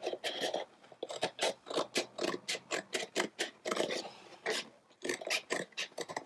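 Scissors cutting through thin cardboard in a quick run of short snips, about four a second, with a brief pause about four and a half seconds in.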